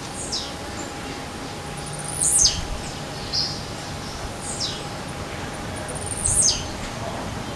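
Blue-black grassquit (tiziu) singing: a short, high, buzzy note that sweeps sharply downward, given four times about two seconds apart. The two loudest open with a brief higher note just before the sweep.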